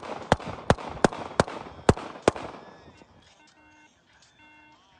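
Rapid volley of gunshots from police officers firing on a man, about three shots a second, six or seven in all, stopping about two and a half seconds in.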